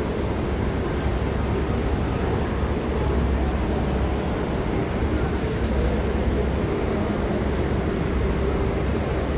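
Steady low rumble of an idling vehicle engine, with a faint wavering hum above it.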